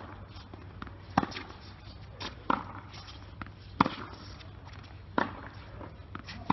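Tennis ball struck by racket over and over in a rally on a hard court: a sharp pop about every 1.3 seconds, with fainter ball bounces between.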